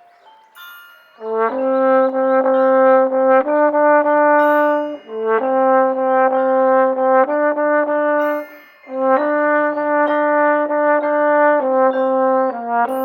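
Marching band brass playing a slow ballad: sustained chords held for a few seconds at a time, with short breaths between phrases, the longest about a second in and another near nine seconds.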